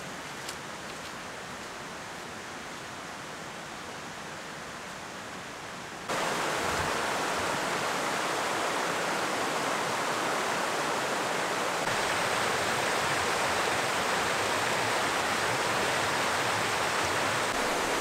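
Creek water rushing steadily over rocks, getting abruptly louder about six seconds in.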